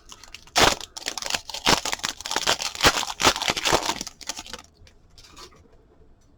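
A trading card pack's wrapper being torn open and crinkled, a dense run of sharp crackles that stops about four and a half seconds in.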